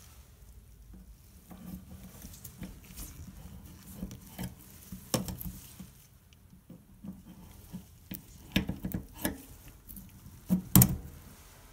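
Small metal pick clicking and scraping against a kitchen faucet body as an O-ring is pried off and rolled up it, with gloved hands rubbing and handling the parts. Scattered light clicks throughout, with a few sharper ones, the loudest near the end.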